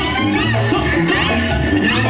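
Mexican banda music with a sousaphone playing a pulsing bass line under brass instruments, at a steady dance tempo.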